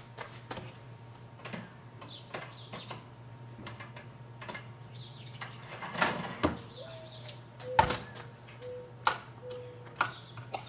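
Knocks and metallic clinks from a Masterbuilt electric smoker as its door is opened, a wire rack slid inside, and the door shut again. The loudest knocks come in the second half.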